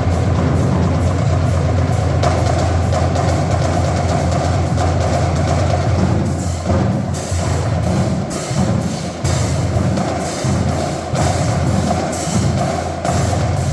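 Marching drumline playing a fast, dense drum cadence with a heavy low drum line. In the second half the low drums break into separate, spaced hits.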